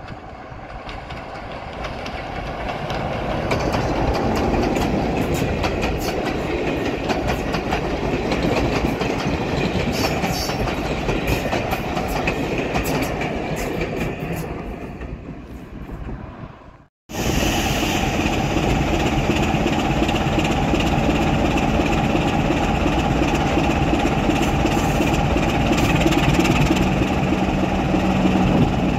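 BR Class 27 diesel locomotive with its Sulzer six-cylinder engine, hauling coaches past: the engine and wheel noise builds over the first few seconds, with wheels clicking over rail joints, then fades. After a sudden cut, the same locomotive's engine idling steadily while it stands close by.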